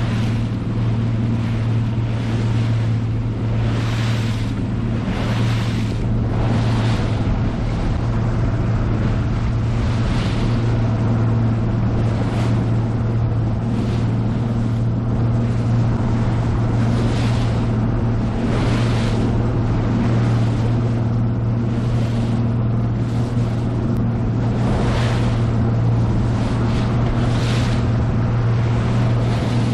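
2018 Nitro Z20 bass boat's outboard motor running at a steady pitch as the boat heads into light lake chop. Water rushes and splashes along the hull every second or two.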